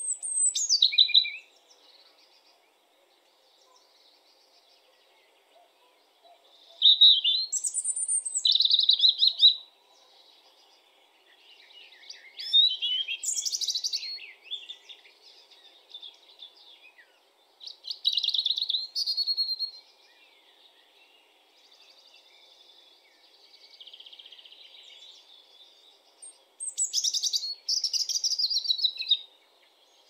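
European robin singing: high, warbling phrases of two to three seconds, separated by pauses of a few seconds, about six phrases in all, one of them fainter.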